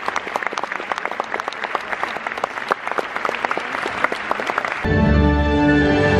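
Cinema audience applauding, a dense patter of many hands clapping. About five seconds in the clapping cuts off abruptly and music with a deep bass takes over.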